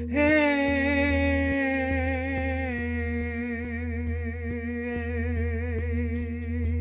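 A voice toning one long sustained note with a slight vibrato, starting right at the beginning after a breath, over a steady low drone and a steady ringing tone.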